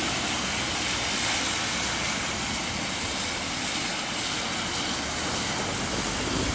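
Thunder rolling in one long, steady rumble that carries on without a break, from a storm close enough for lightning to light the sky overhead.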